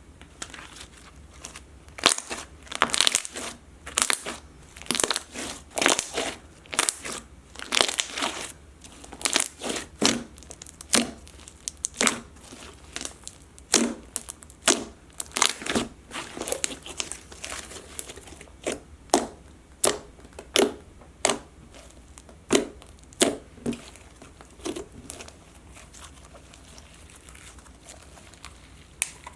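Slime being squeezed and worked by hand, giving a run of sharp, wet pops and clicks, about one or two a second, that thin out near the end.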